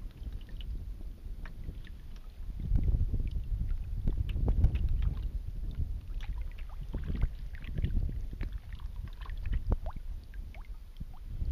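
Kayak paddle strokes in shallow river water, with drips and small splashes off the paddle, over a low rumble of wind on the microphone.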